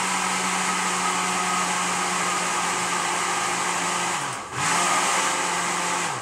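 Electric blender with a small grinding jar running at full speed, blending a chilli paste; the motor winds down briefly about four seconds in, starts again, and stops at the end.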